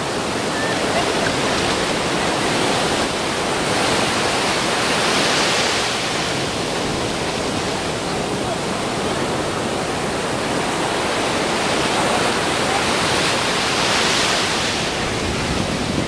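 Heavy ocean surf breaking and foaming around people wading in the shallows: a steady rush of churning water that swells twice, about five seconds in and again near the end.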